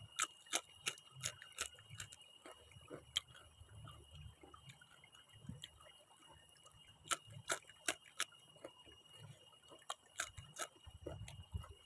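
Crisp crunching of raw vegetables being chewed close to the microphone, in irregular runs of short, sharp crunches, over a faint steady high tone.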